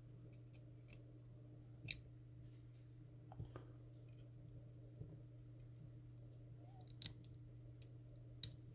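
Sparse, faint metallic clicks and taps of small tools and brass pins as the number-4 pin stack, a spool pin, is worked out of an American 5200 padlock's cylinder. A steady low hum runs underneath.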